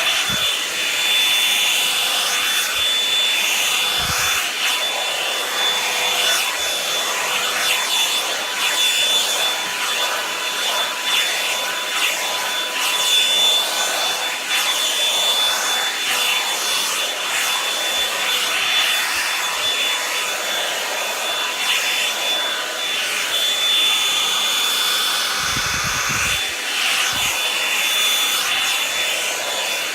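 Revlon hair dryer brush running on its high setting: a steady blowing rush with a thin high whine from the motor, while the brush rubs and rustles through hair.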